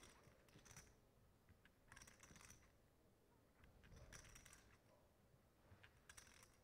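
Faint clicking of poker chips being handled and riffled at the table, in short clusters of clicks about every two seconds.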